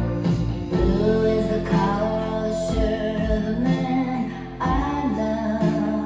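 A song with a singing voice and guitar played through Sonus Faber Duetto active bookshelf speakers, heard in the room through a phone's microphone rather than a professional one.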